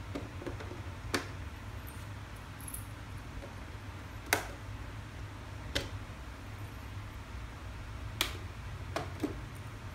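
Half a dozen sharp plastic clicks and taps at irregular intervals, the loudest about four seconds in, as a hand presses on the hard plastic body shell of a 1/10-scale RC rock crawler. A low steady hum runs underneath.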